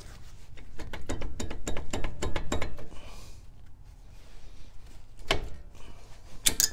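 Brake caliper on a Dodge Ram 3500's front wheel being worked loose and pulled off its pads by gloved hands, with quick runs of metallic clicks and clatter. The clicking is busiest from about one to three seconds in, then comes back with a loud cluster near the end.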